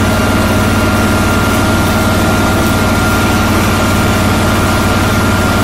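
John Deere 445 garden tractor's engine idling steadily, with a thin steady high whine over the low engine hum.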